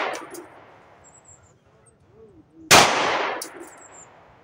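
A single 9mm pistol shot from a Bul M5, fired with Federal 124-grain ammunition, comes a little past halfway through, with an echo trailing off for about a second. At the start the echo of the previous shot is still dying away.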